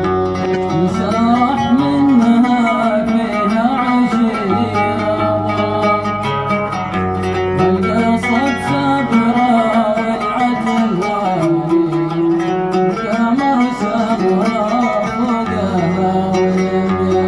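Oud being plucked while a man sings a drawn-out, wavering vocal line over it in the dan style of Arabian Gulf and Yemeni song.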